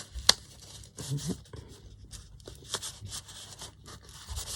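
Paper pages and card being handled and shuffled, rustling in short spells, with a sharp click or tap about a third of a second in.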